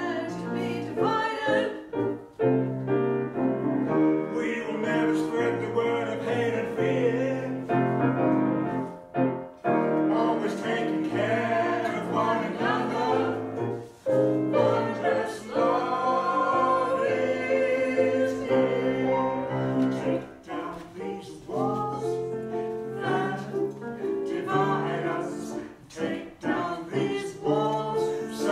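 Mixed vocal quartet, two women and two men, singing a gospel song together in several parts, accompanied by a grand piano.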